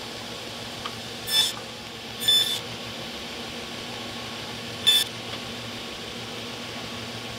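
Table saw running with a steady hum. Its blade, tilted to 22.5 degrees, cuts three brief grooves across a hard maple block, and each cut is a short high-pitched whine louder than the hum.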